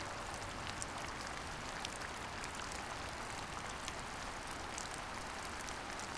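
Steady rainfall: an even hiss with scattered ticks of single drops.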